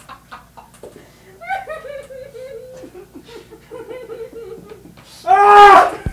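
Men laughing quietly, with a loud drawn-out vocal outburst a little past five seconds in.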